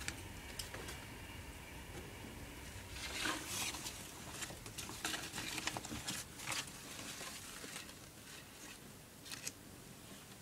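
Faint rustling and crinkling of paper and cloth being handled, with scattered light clicks and knocks; busiest from about three to seven seconds in.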